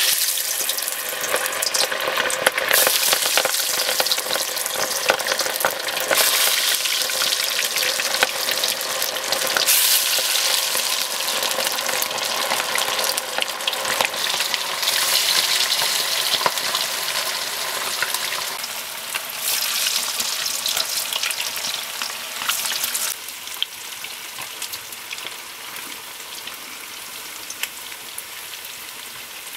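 Battered chicken pieces deep-frying in hot oil in a black wok, a loud, steady sizzling that drops to a quieter sizzle about 23 seconds in.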